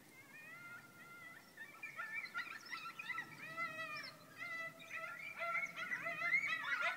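A pack of coyotes howling and yipping together, many voices overlapping in wavering, sliding calls that build louder and denser towards the end.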